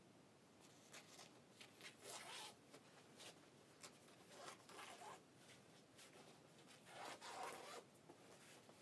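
Faint rasping strokes of scissors cutting lengthwise through a long strip of Ankara cotton fabric, with cloth rustling against the carpet.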